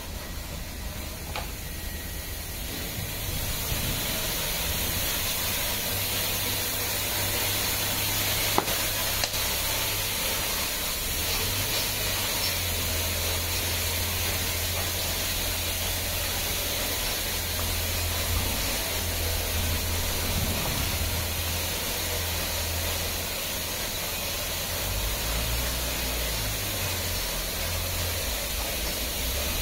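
Touchless automatic car wash equipment running: a steady hiss with a low hum beneath, building over the first few seconds, with one sharp click a little over eight seconds in.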